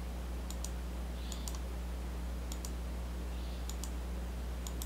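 Computer mouse clicking: about five sharp clicks, several in quick pairs, roughly a second apart, over a steady low electrical hum.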